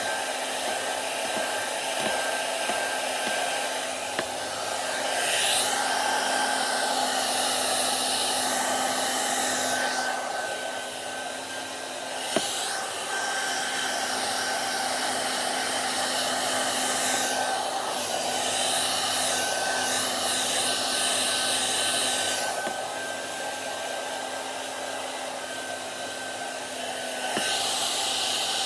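Hair dryer blowing steadily, with a steady hum and whine under the rushing air. The hiss swells brighter and fades by turns every few seconds, with one sharp click about halfway through.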